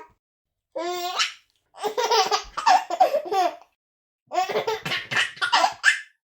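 A baby of about six months laughing, in three bouts of high-pitched, choppy giggles separated by short silences.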